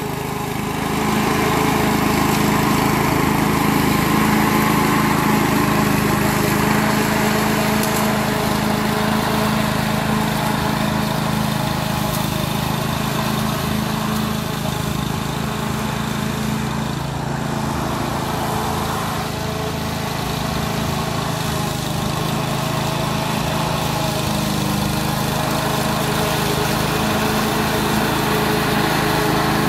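Duricut 820 walk-behind rotary lawn mower's 159cc petrol engine running steadily as the mower is pushed through grass, cutting.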